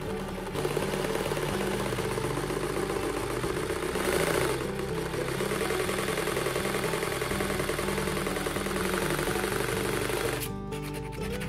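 Electric jigsaw running steadily, its blade cutting into a wooden board; the saw stops suddenly about a second before the end.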